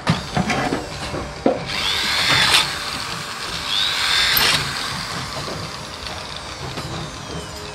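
Handheld electric drill boring into an aluminium ladder rail in two runs of about a second each, its motor whine rising and falling with each run. A few sharp knocks come before the first run.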